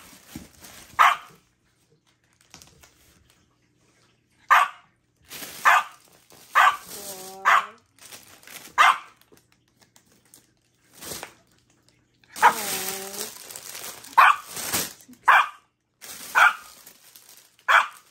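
A dog barking in short single barks, about a dozen in all, spaced irregularly with brief pauses. Plastic packaging crinkles around the middle.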